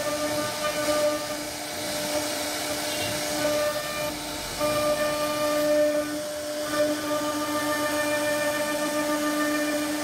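CNC router spindle running with a steady high whine as its bit carves the wooden door panel, with a hiss from the cutting. The whine weakens briefly a little before halfway and comes back stronger.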